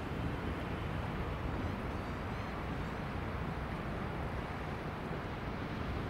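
Boeing 777-300ER's GE90 jet engines, a steady rumble with no distinct events.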